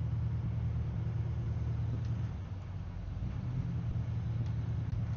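Steady low drone of a 44-foot Aquila yacht's engines running under way.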